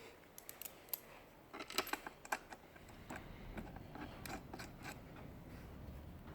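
Scattered light clicks and metallic ticks of screws with washers being handled and started by hand into the chair's back bracket, in small irregular clusters.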